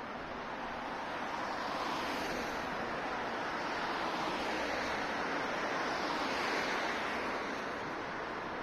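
Road traffic on a wide city avenue: a steady rush of tyre noise from passing cars, swelling as vehicles go by and loudest about three-quarters of the way through.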